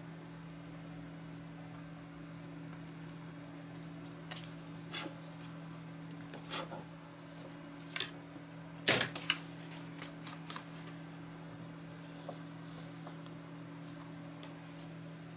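Paper card being handled and moved on a cutting mat: a scatter of short rustles and taps, the loudest cluster about nine seconds in, over a steady low hum.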